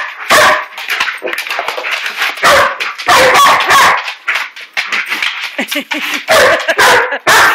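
A dog sneezing hard in a string of short, sharp bursts, mixed with barking. The sneezing is an old Lab–dachshund mix clearing her nose after being riled up by a puppy.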